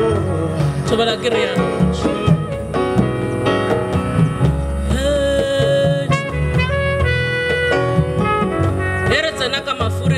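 Live jazz band playing, with upright double bass under a melody line that holds one long note about halfway through.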